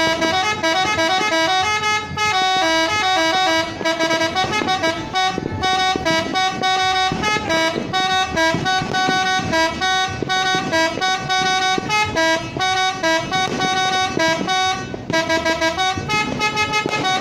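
Tour bus 'telolet' musical air horn playing a fast tune: several horn trumpets sound steady notes that switch pitch every fraction of a second, over and over without a break.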